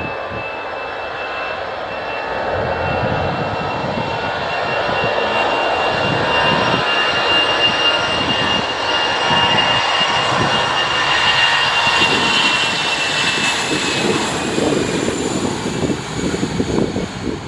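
Jet airliner's engines as it passes close by: a steady high whine over a broad rumble that builds to its loudest around the middle. Near the end the whine drops in pitch as the plane moves away.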